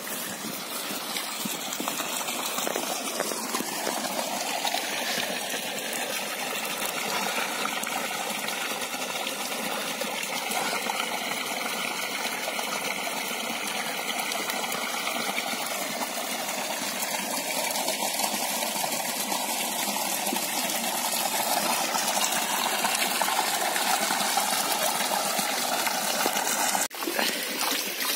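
Water pouring steadily from an inflow pipe into a concrete trout pond, a continuous rush and splash, with a brief dip near the end.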